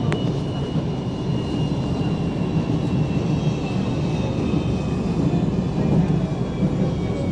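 Interior of a CSR Zhuzhou "AMY" light rail train running: a steady rumble of wheels on the track under a high electric whine from the drive that falls slowly in pitch. A single sharp click sounds just after the start.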